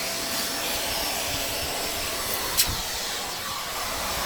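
Vacuum cleaner running steadily, sucking up debris from the floor, with one sharp click partway through.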